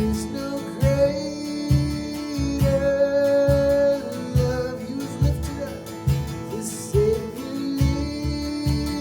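Acoustic guitar strummed in a steady rhythm, with held notes above it, in an instrumental passage of a worship song.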